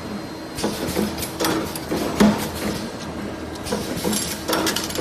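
Workshop machinery running: a steady hum under irregular sharp metallic clicks and knocks, several to the second at times.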